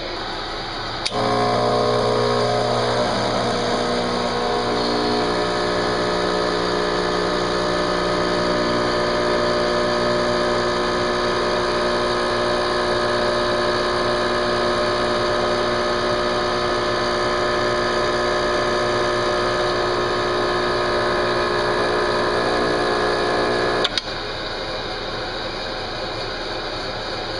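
Rancilio Silvia espresso machine's vibratory pump buzzing steadily as it pulls a shot of espresso. It switches on with a click about a second in and cuts off with a click near the end, after running for about 23 seconds.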